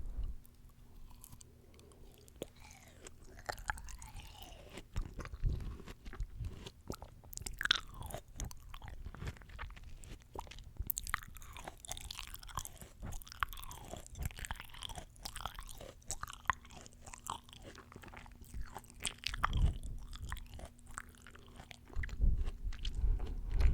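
Close-miked chewing of crisp, juicy fresh fruit: many small wet crunches and mouth clicks, with a few heavier bites along the way.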